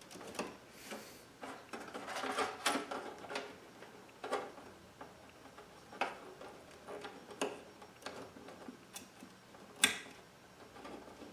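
Cable connectors being plugged into hard drives inside a PC case: scattered plastic clicks and knocks with rustling handling of the cables, busiest about two to three seconds in, and a sharper click near the end.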